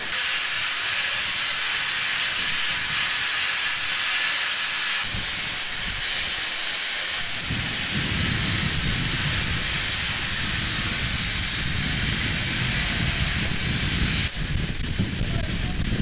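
Steady, loud hiss of industrial equipment on a natural gas platform. A little past halfway a heavier, low noise joins it as an angle grinder grinds a steel pipe, and the sound changes again shortly before the end.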